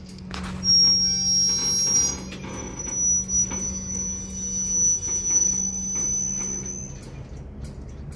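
Steel wheels of a freight train squealing: one long, high, steady screech that starts about a second in and stops near the end, over a low steady hum, with scattered knocks. The train has stalled on the grade and is rolling backwards.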